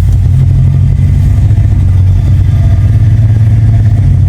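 Jeep Grand Cherokee SRT's 6.4-litre Hemi V8 running steadily with a loud, deep exhaust drone.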